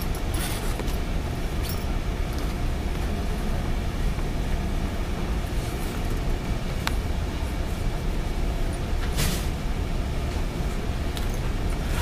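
Steady low rumble of classroom background noise, with a faint click about seven seconds in and a short rustle a little after nine seconds.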